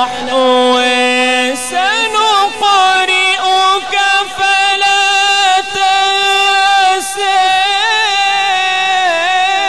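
A man's voice reciting the Quran in a melodic, drawn-out tajweed style into a microphone, with long held notes that waver and turn in pitch and short breaks for breath.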